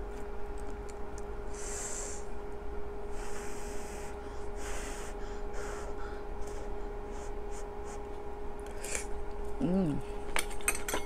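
Close-up eating sounds: several breathy puffs of blowing on a hot piece of kimchi from the stew, then chewing, a short hummed "mm" near the end, and a few light clicks, over a steady low hum.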